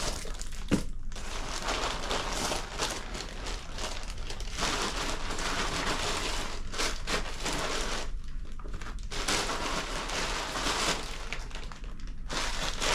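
Packaging crinkling and rustling almost without a break as many small items are pulled out of a mail-order package, with a few brief pauses.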